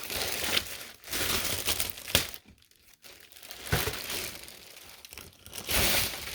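Packaging crinkling and rustling in bursts as it is handled and unwrapped, with a short near-silent pause about halfway through.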